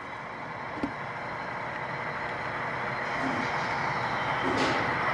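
Sound-equipped HO-scale model diesel locomotives running on a layout, their sound decoders giving a steady engine and rumble that fades in and grows louder, with a single click about a second in and a short hiss near the end.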